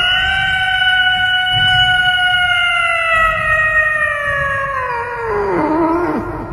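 Domestic cat giving one long, loud yowl, held for about six seconds and slowly falling in pitch. It wavers and trails off near the end.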